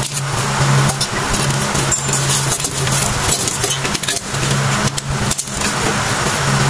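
Metal clinking and scraping as worn brake shoes and their return springs are pulled off a Mitsubishi L300's drum-brake backing plate. This comes with short clicks, over steady loud background noise and a low hum that comes and goes.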